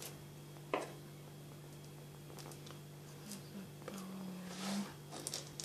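Table knife spreading thick boiled condensed milk over a wafer cake layer: faint soft scrapes and a single tap about three-quarters of a second in, over a steady low hum.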